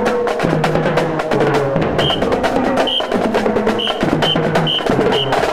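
Marching drumline playing: fast snare drum strokes and rolls over marching bass drums sounding notes of different pitch. Short high-pitched tones sound about six times from about two seconds in.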